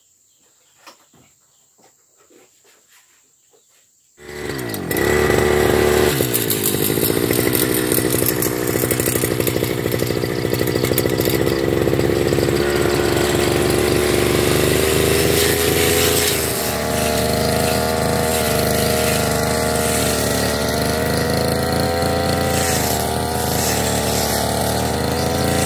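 Petrol brush cutter with a metal blade coming in suddenly about four seconds in, revving up and then running at high speed while it cuts grass. Its pitch dips and rises a few times.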